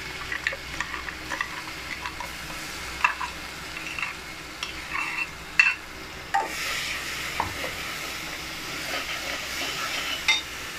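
Ground onion-chilli-garlic-ginger masala paste sizzling in hot oil in a pressure cooker, with a steel spatula scraping and clinking against the mixer jar and the pot as the paste is tipped in and stirred. The sizzle grows louder about six seconds in.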